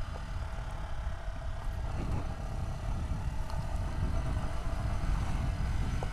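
Yamaha WR trail motorcycle ridden slowly over a rocky gravel track: its single-cylinder engine running steadily under a low rumble of tyres and wind.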